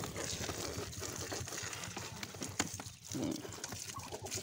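Water splashing over Muscovy ducks and the bamboo slats of their cage while they are bathed, with scattered knocks and scuffs of the birds moving on the slats and one sharper knock a little past halfway.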